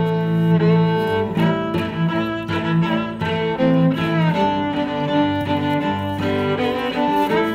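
Background music on bowed strings, with sustained notes that change every half second or so.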